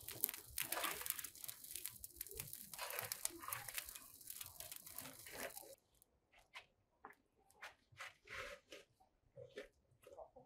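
Dry brushwood crackling as it burns in a brick tandir oven, a dense crackle full of small snaps. About six seconds in it changes suddenly to scattered scrapes and knocks of a metal scoop working at the tandir.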